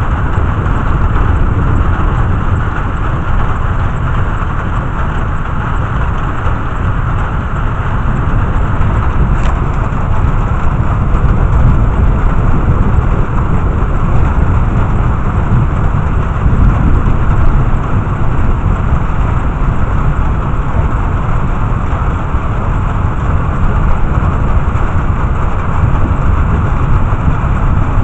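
Heavy rain falling in a thunderstorm: a steady, loud rushing noise with a deep low rumble underneath, swelling slightly now and then.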